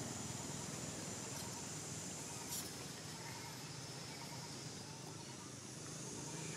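Quiet outdoor ambience: a steady high-pitched drone and a low rumble, with a few faint short chirps and a brief tick about two and a half seconds in.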